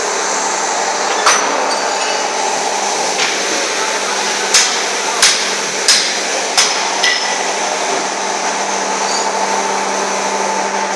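Hammer knocks in a shoe factory: about seven sharp strikes, four of them evenly spaced in a quick run around the middle, over the steady hum of factory machinery.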